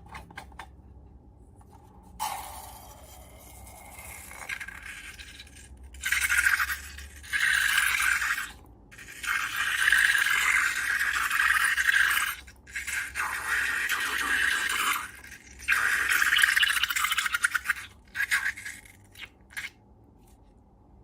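Crackly scraping and rubbing from hands working slime and balloons, in several long bursts with short breaks between them. A few sharp clicks come at the start and near the end.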